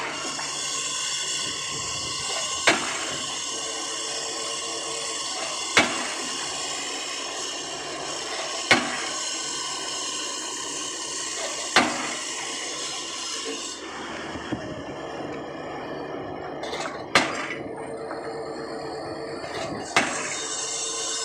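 Diesel pile hammer striking a PHC concrete pile with sharp single blows about every three seconds, over a steady machinery noise. One blow near the middle is much weaker than the rest.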